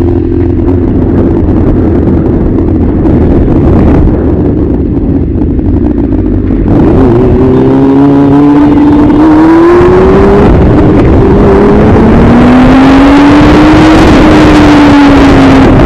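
Motorcycle engine running under wind noise. From about seven seconds in it gets louder and revs up as the bike accelerates, its pitch climbing to a peak shortly before the end, then easing off.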